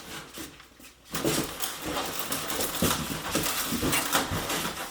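Styrofoam packing squeaking and rubbing as parts are pulled out of it, with rustling and small clicks, starting about a second in.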